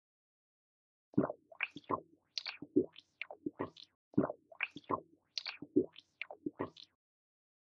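Edited-in cartoon sound effect: a quick run of bubbly bloops, each sweeping up or down in pitch, in short repeating groups. It starts about a second in and stops shortly before the end.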